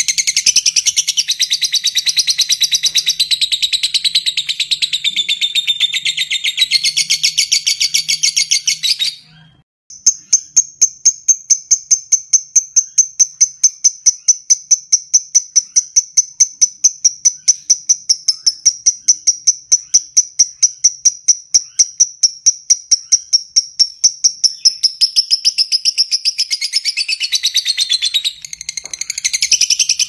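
Fischer's lovebird singing its long 'ngekek' chatter: a rapid, unbroken string of shrill notes. It breaks off briefly about nine seconds in, then resumes as a steadier, higher run that lasts most of the rest.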